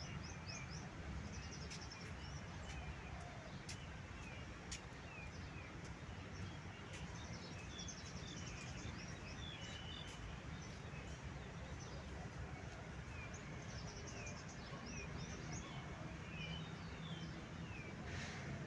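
Small birds chirping repeatedly with short, quick calls, over a low steady rumble.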